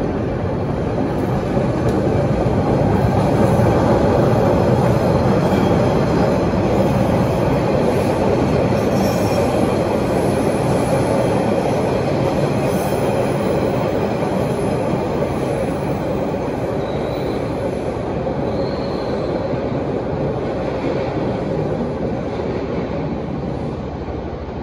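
MBTA Orange Line subway train passing on the far track, its wheels rumbling on the rails. It grows loudest a few seconds in and then slowly fades as it moves away, with a few faint wheel squeals partway through.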